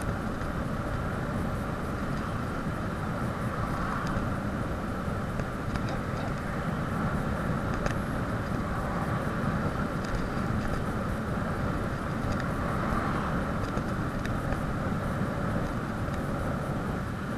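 Steady wind rush and low rumble of a bicycle descending a mountain road at speed, with wind buffeting the camera's microphone.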